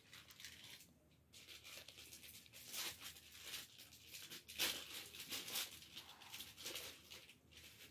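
A kitten chewing and nibbling a piece of baked pastry held to its mouth: irregular crackly crunching and tearing sounds, picking up about a second and a half in.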